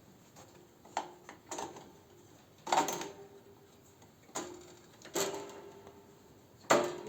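Six sharp knocks and clinks of hard parts being handled, irregularly spaced about a second apart, each followed by a brief metallic ring.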